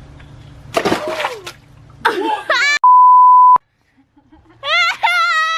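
A loud, steady, single-pitch censor bleep lasting under a second, cut in over a word about halfway through. Before it come a short burst of hissing noise and a brief shout, and near the end a long, held yell begins.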